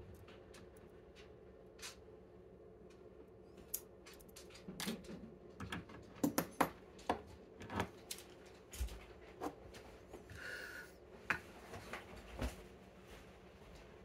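Small metal lock cylinder and picking tools being handled and set down on a desk mat and a wooden pinning tray: a run of light clicks and taps, most of them between about five and twelve seconds in.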